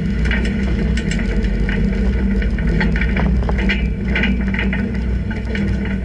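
Car driving slowly, a steady low engine and road rumble heard from inside the cabin, with frequent light irregular ticks and rattles.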